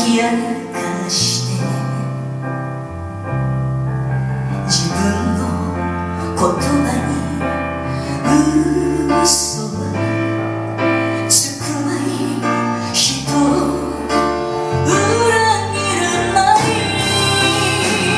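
Japanese ballad with a woman singing over piano and band accompaniment.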